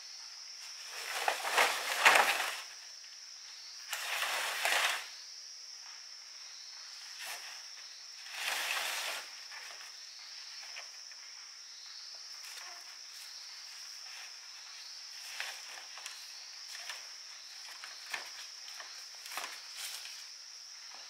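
Long bamboo poles rustling and scraping through dry leaves as they are slid down a slope, in three rushes, the first the loudest; later come scattered light footsteps and knocks. A steady high insect buzz runs underneath.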